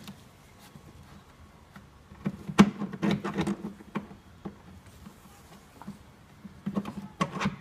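Plastic brake fluid reservoir knocking, clicking and scraping against engine parts as it is worked into place behind the intake manifold. The knocks come in two clusters, one about two seconds in and one near the end, with a few single ticks between.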